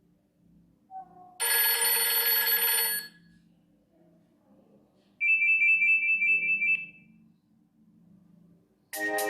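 Nokia E63 ringtones played in turn, with short pauses between them: a brief blip about a second in, then a bright electronic chord lasting about a second and a half, then a high trilling tone lasting about a second and a half. A new melodic tone starts near the end.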